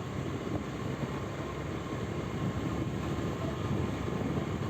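Steady rumble of a moving vehicle on the road: engine and road noise with no horn or sudden event.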